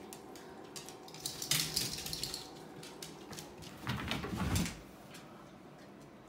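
A Shiba Inu's claws clicking on a hard floor as it runs, then thumps and scrabbling as it jumps and twists about on the floor, loudest about four seconds in.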